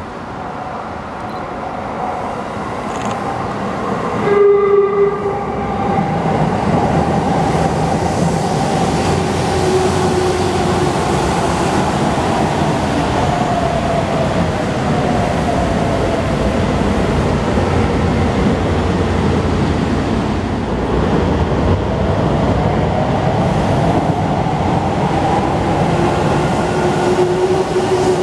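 Sendai Subway 1000-series train: a short horn blast about four seconds in, then steady running noise. A motor whine slides down in pitch in the middle and rises again near the end.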